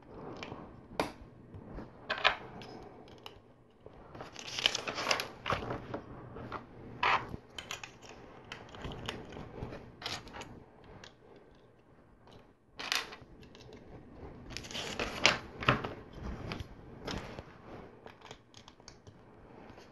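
Plastic LEGO bricks being handled and pressed together: scattered clicks and snaps, with two denser runs of clicking, about five seconds in and again about fifteen seconds in.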